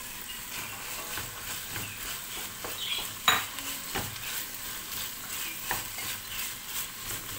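Chopped zucchini, green beans and carrots sizzling in oil in a stainless steel pot while a wooden spoon stirs them, scraping and knocking against the pot. The sizzle is a steady faint hiss, and the spoon gives a few sharp knocks, the loudest about three seconds in.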